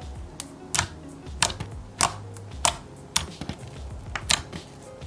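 Slime being pressed and poked by hand, giving sharp clicking pops about every half second, over soft background music.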